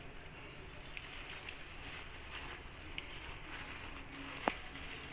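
Faint rustling and crinkling of a plastic bag as gram flour (besan) is poured from it into a steel bowl, with a few light ticks and one sharper click about four and a half seconds in.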